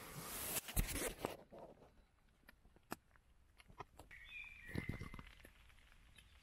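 Tent fabric rustling as the door flap is handled. Then it goes quiet, with a few faint ticks and soft rustles of movement inside the tent.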